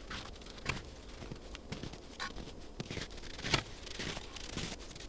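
Footsteps crunching on snow over lake ice, a steady walking rhythm of roughly one or two steps a second, growing louder as the walker approaches.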